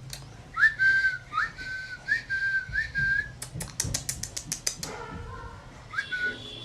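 Whistling: about five short notes, each sliding up and then held, followed by a quick run of sharp clicks for about a second and one more whistled note near the end.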